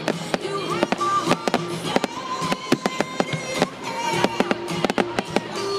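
Fireworks bursting in the sky, a quick irregular run of sharp bangs and crackles several times a second, heard together with music holding long notes.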